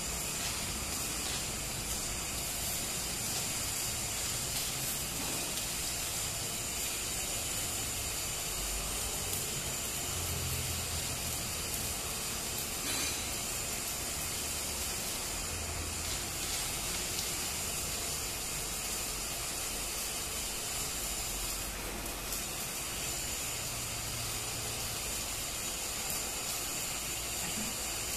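Stick (shielded metal arc) welding arc burning continuously on a plate held upright, a steady hiss with fine crackle.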